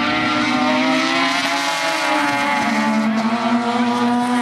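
Mazda RX-7 race cars' 13B rotary engines running hard together, a steady high engine note that shifts lower about three seconds in.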